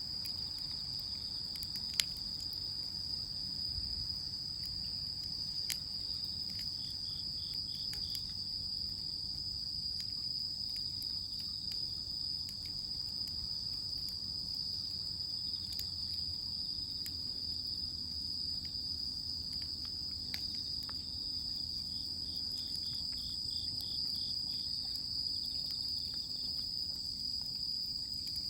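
A steady outdoor chorus of crickets trilling at one high, unbroken pitch, with another insect's pulsed chirping in two stretches. A few sharp clicks fall over it, the loudest about two seconds in.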